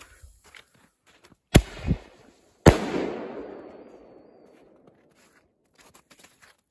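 Three Mad Dog Thundershock firecrackers going off in quick succession. Two sharp bangs come close together about a second and a half in, and a third follows about a second later, rolling on in a long echo.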